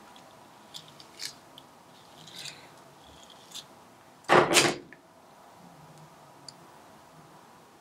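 Soft scattered handling noises of hands working hair and bobby pins, with a few faint clicks. About four seconds in there is one loud, brief rustle lasting about half a second.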